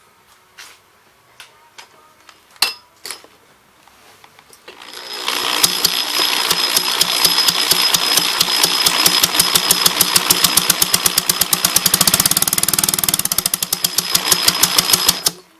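A power drill spinning the crankshaft of a 1963 Evinrude Fastwin 18 two-cylinder outboard, a drill whine over a rapid, even beat of the motor turning over that quickens for a moment, then stops suddenly. The drill starts after a few light clicks and a sharp tap. It is run to check a knock in the top cylinder, which the owner does not really notice when spinning it with the drill.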